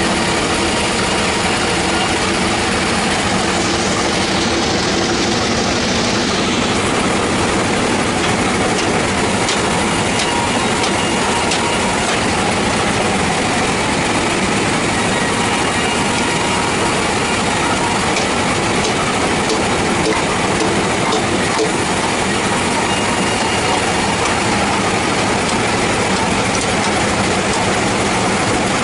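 Band sawmill running, its blade sawing through a log: a steady, loud mechanical din with scattered clicks.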